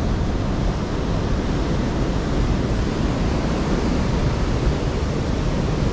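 Heavy ocean surf from a large swell breaking on a rocky shore, a steady, even rush of noise, with wind buffeting the microphone.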